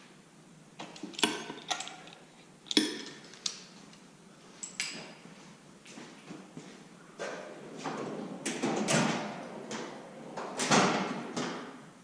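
Hand tools clinking and knocking against metal while a knock sensor is worked out of an LS V8 engine block, with sharp single clicks in the first half and longer scraping, rattling handling noise later on.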